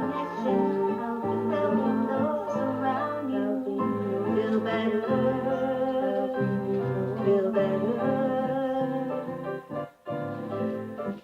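Song music with guitar playing, dropping out briefly near the end.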